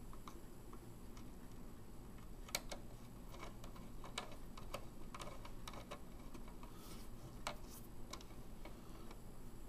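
Small screwdriver turning screws down through a circuit board into standoffs: faint, irregular clicks and light scrapes, with a few sharper clicks among them.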